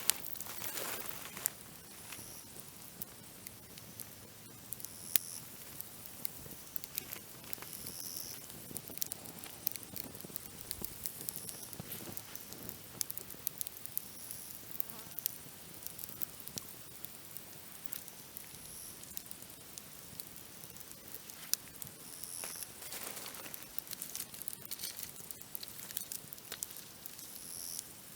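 Dry branches crackling in a campfire: scattered sharp pops and clicks at irregular intervals. Short, high insect chirps, likely grasshoppers, recur every few seconds behind them.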